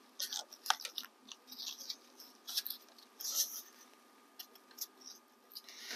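Scattered short scrapes and squeaks of a carved foam piece being pressed and fitted into place against the roadbed by hand, with a sharp click about a second in.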